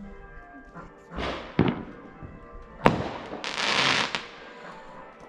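Fireworks going off: two sharp bangs, about 1.5 s and 3 s in, with a hissing swell just before the first and a longer crackling hiss about 3.5 s in.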